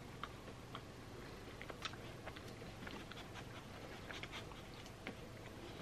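Faint chewing, with small scattered clicks, of someone eating a buttercream-filled cookie.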